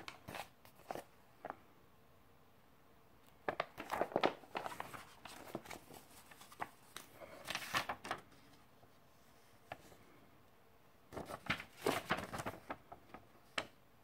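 Paper rustling and crackling as folded instruction-manual sheets are handled and unfolded, in three spells: briefly at the start, from about three and a half to eight seconds in, and again from about eleven to thirteen seconds in.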